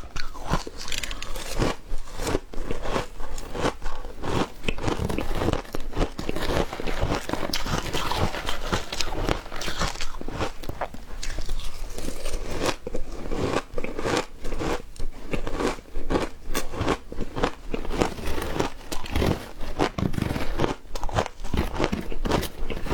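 A person biting and chewing frozen matcha ice, a continuous run of crisp, irregular crunches.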